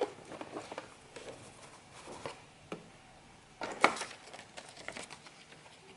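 Hands unpacking a cardboard box: a foam insert and a folded paper sheet being handled, giving scattered rustles, light taps and knocks, with a sharper clatter a little before four seconds in.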